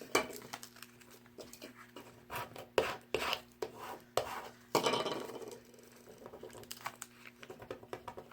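Cardstock and vinyl cut-out pieces handled on a tabletop: irregular taps, rustles and scrapes, with a longer rubbing scrape about five seconds in.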